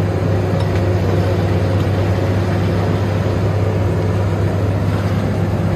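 Diesel engine of a ready-mix concrete mixer truck running steadily, a loud, even low hum.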